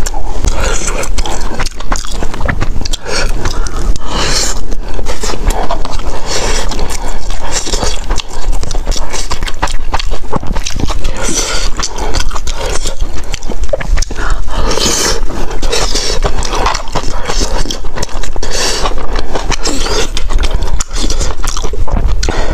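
Close-miked eating sounds: wet chewing of saucy rice from a self-heating hot pot, mixed with a metal spoon scraping and clinking against the tray as it scoops. Continuous, with no pauses.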